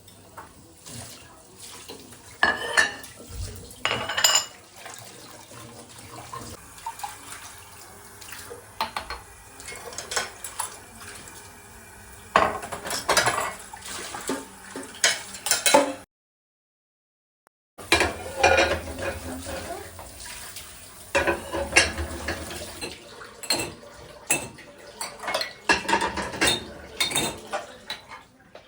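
Kitchen dishes and cutlery clinking and knocking as food is prepared and served: many separate clinks, some louder, cutting to silence for about two seconds near the middle.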